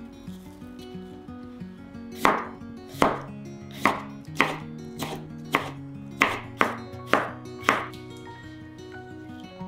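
Kitchen knife slicing a cucumber on a wooden cutting board: about ten crisp cuts at a little under two a second, starting about two seconds in and stopping about eight seconds in.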